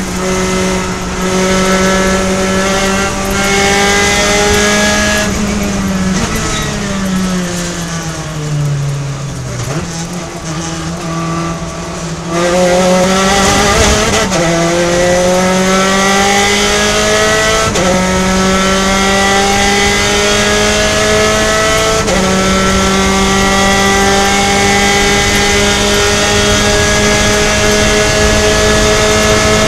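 Onboard sound of a Gen3 Spec Racer Ford's engine at racing speed. It is held at high revs, then the revs fall in steps as the car brakes and downshifts into a slow corner, and climb again under full throttle out of it. Three upshifts follow, each a sudden drop in pitch before the revs rise again, with a steady rush of wind over the open cockpit.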